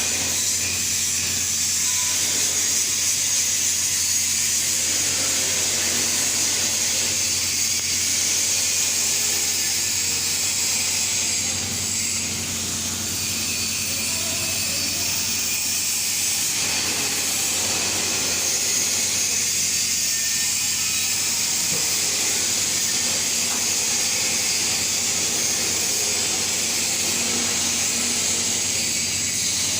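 TIG (GTAW) welding arc burning steadily: a continuous hiss over a low, steady hum.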